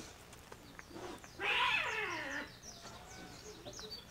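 A cat meowing once, a loud raspy meow that falls in pitch, about a second and a half in, with small birds chirping in the background.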